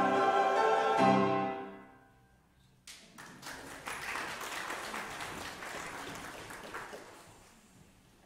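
A church choir with piano holds its final chord and releases it about a second and a half in, the sound dying away in the room. After a short silence the congregation applauds for several seconds, the clapping fading out near the end.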